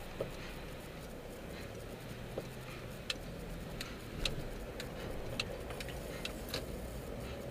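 Steady in-cabin road and engine noise from a car in slow traffic, with a run of light, sharp ticks from about three seconds in, roughly two a second.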